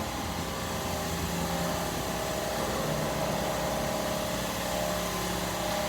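A steady mechanical hum, like a motor or fan running, with a few steady tones over a noisy background and a slight change in pitch about halfway through.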